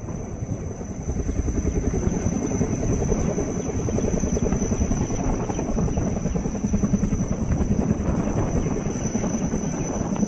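HAL Dhruv helicopter hovering low, its rotor beating steadily over the turbine's noise; it grows louder about a second or two in and then holds steady.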